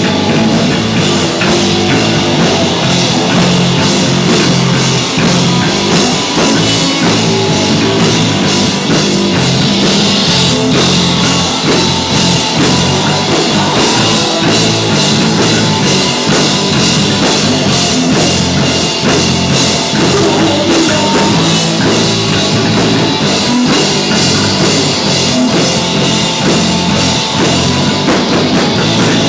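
Live punk rock band playing loud, with a drum kit and guitars going steadily throughout.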